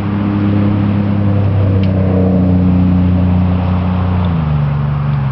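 An engine running steadily, with a low, even hum whose pitch steps down about a second and a half in and again near the end.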